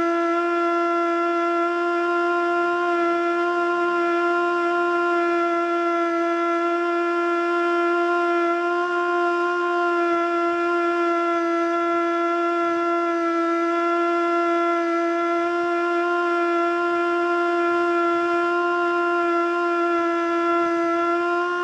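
Federal Signal Model 2 outdoor warning siren sounding a steady alert tone, its pitch wavering slightly. It never reaches full pitch, which the owner puts down to probably worn motor brushes.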